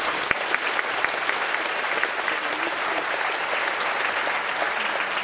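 Theatre audience applauding: a dense, steady clatter of many hands clapping.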